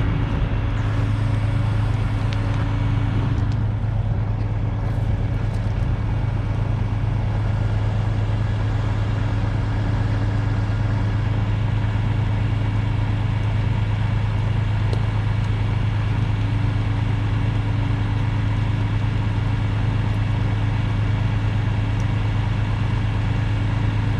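Truck engine idling steadily with a low, even hum.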